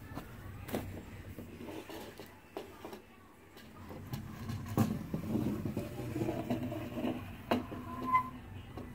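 Toy model airliner being handled and moved on a wooden tabletop: knocks as it is set down and picked up, and scraping as it slides along. A short squeak comes near the end.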